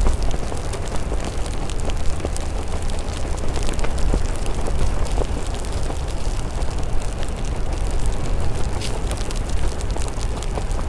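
Wind rumbling over the microphone of an electric unicycle ridden through rain, with a steady hiss and scattered sharp ticks of raindrops striking the microphone.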